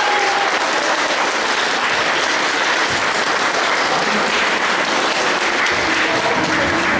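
Audience applauding steadily, with a few faint voices calling out near the start and near the end.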